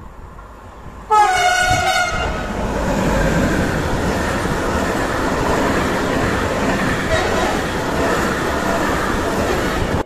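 Freight train locomotive's horn sounding one short blast about a second in, the driver's greeting, followed by the rumble and wheel clatter of a loaded container train passing close by.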